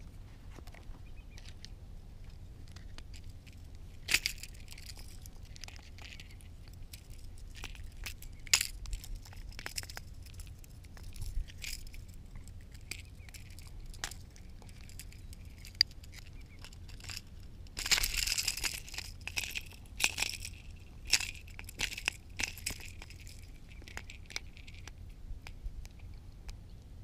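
Close handling sounds of unhooking a bass: scattered sharp clicks and rattles of fishing pliers and the treble hooks of a topwater plug, with a denser burst of rattling and crackling about two-thirds of the way through.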